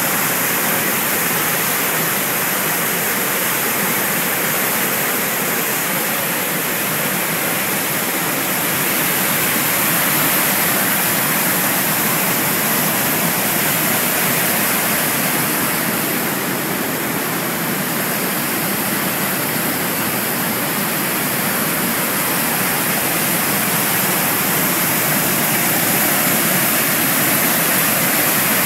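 Athabasca Falls: the Athabasca River pouring over the falls, a loud, steady rush of falling water.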